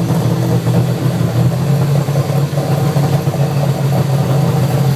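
An engine running steadily, a loud low hum that holds even without revving.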